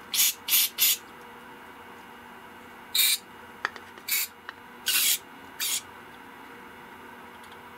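Short spurts of hissing from an aerosol can of carburetor cleaner sprayed into a snowmobile carburetor's fuel line fittings to flush out dirt: three quick bursts at the start, then four more spread over the next few seconds.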